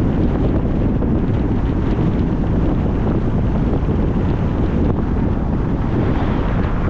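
Steady wind buffeting the microphone: a loud, even rumble with no distinct events.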